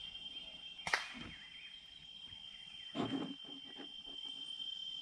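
Steady, high-pitched insect drone with faint bird chirps. A sharp click comes about a second in and a duller knock near three seconds.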